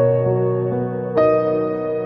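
Background music: soft keyboard chords, held and changing, with a new chord struck right at the start and another about a second in.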